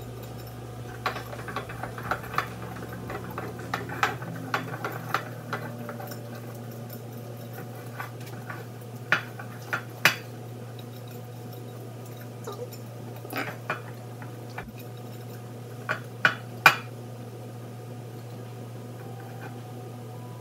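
Wire whisk clinking and scraping against a glass mixing bowl as thick brownie batter is stirred, in irregular taps with a few louder knocks, over a steady low hum.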